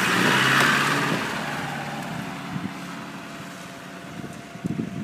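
Off-road vehicle engine running, loudest in the first second and then fading away steadily, as if moving off. Uneven rumbling picks up again near the end.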